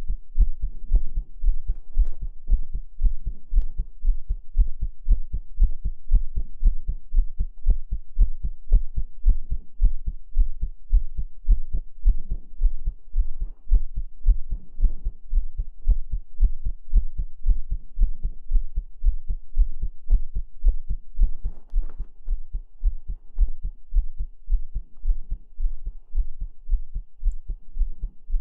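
Heartbeat sounds: a steady, even rhythm of deep, low thumps, like a heart heard through a stethoscope or from the womb.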